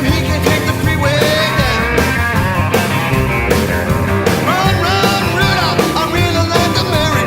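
Rock music with a steady drum beat and a melody line that bends in pitch.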